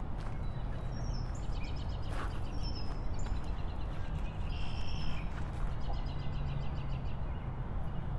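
Outdoor ambience: small birds chirping with short high whistles every second or so over a steady low rumble.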